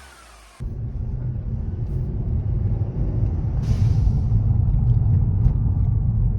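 The fading hiss of a GFB DV+ vent-to-atmosphere blow-off valve on a Mercedes C250 stops abruptly about half a second in. The car's engine then runs with a steady low rumble, with one brief hiss about three and a half seconds in.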